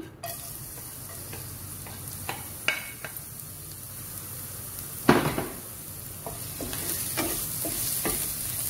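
Chopped garlic sizzling in hot oil in a frying pan, stirred with a silicone spatula, the sizzle growing louder over the last couple of seconds. A few light clicks and a sharp knock about five seconds in.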